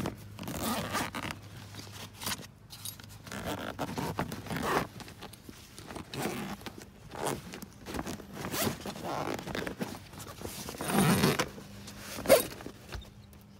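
Zipper of a large fabric cargo bag being pulled open in a series of short, uneven pulls. A sharp click near the end is the loudest moment.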